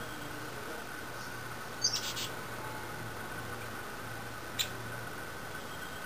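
Fledgling Nuttall's woodpecker squeaking: a short cluster of high, sharp squeaks about two seconds in, then a single sharp squeak about three-quarters through.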